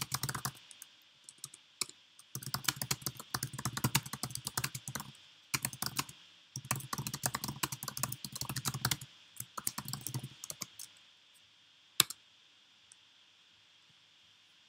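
Typing on a computer keyboard in several quick runs of keystrokes, then a single loud click about twelve seconds in.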